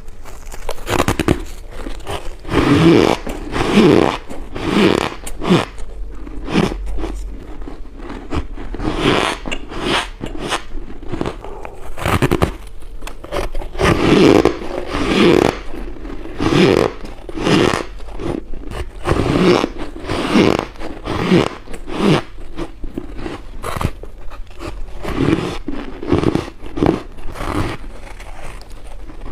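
Close-miked biting and crunching of freezer frost: a run of short, crisp crunches, about one or two a second, as the packed frost is bitten and chewed.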